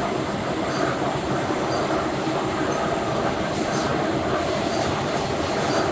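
Steady running noise of factory machinery at an enamel drying-oven line: the oven's conveyor and blowers going, with faint high blips recurring about once a second.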